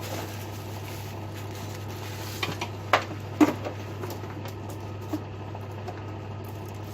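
A few short plastic clicks and knocks as a vacuum cleaner's body is handled and opened to fit a dust bag, the sharpest about three seconds in, over a steady low hum.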